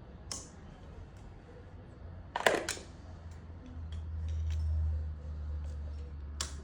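Sharp metallic clinks and clicks of metal parts being handled. The loudest is a quick cluster about two and a half seconds in, over a low hum that swells for a second or so near the middle.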